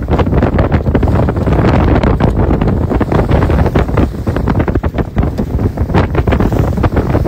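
Strong force-5 wind buffeting the microphone in irregular gusts aboard a heeling sailboat, with water rushing along the hull underneath.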